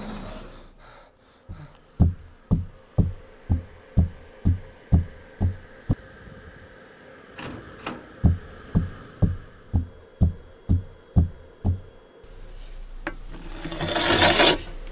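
Sound-design mix of low, evenly spaced thumps, about two a second, with a short break midway, over a faint steady hum. Near the end a hiss swells up and then cuts off.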